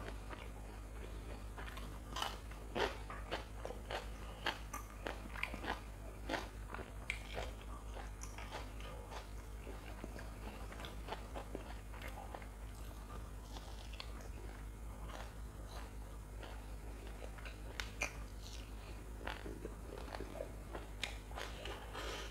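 Close-miked biting, crunching and chewing of crispy deep-fried Sri Lankan snacks, wade and batter-fried chilies, with many sharp irregular crunches, busiest in the first several seconds and again near the end. A steady low electrical hum runs underneath.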